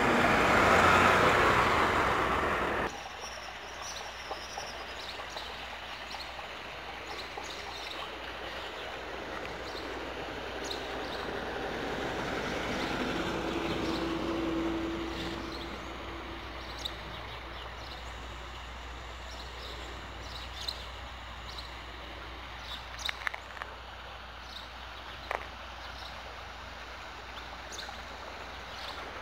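Street traffic: a vehicle passes loudly for the first three seconds, then the sound cuts abruptly to quieter outdoor background. Another vehicle passes in the middle, with scattered bird chirps and a few light clicks.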